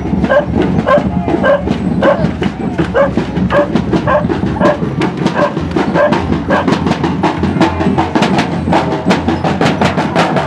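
Street procession drums beaten in a steady rhythm, with a short higher-pitched note sounding about twice a second over the first six seconds. The beating grows faster and denser near the end.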